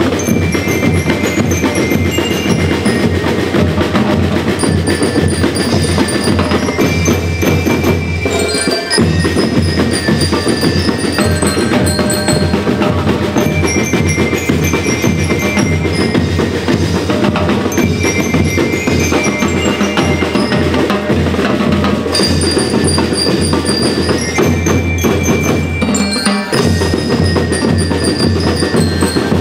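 School rhythm band playing: bell lyres carry a repeating high melody over snare and bass drums. The drums drop out briefly twice, about a third of the way in and near the end.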